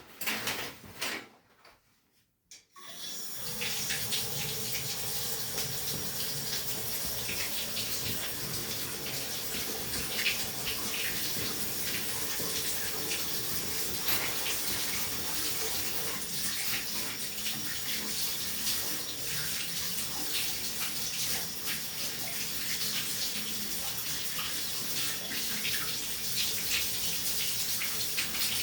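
A few knocks near the start, then a shower is turned on about three seconds in and runs steadily, water spraying and splashing down.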